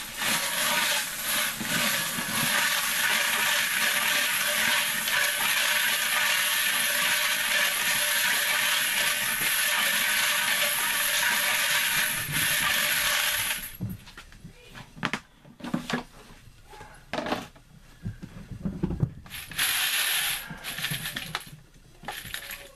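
Frankford Arsenal wet/dry media separator being hand-cranked: brass cartridge cases and wet tumbling pins rattle and clatter steadily inside the spinning drum for about fourteen seconds, then stop abruptly. After that come scattered knocks and clunks as the cover and drum are handled, with a brief second rattle of brass.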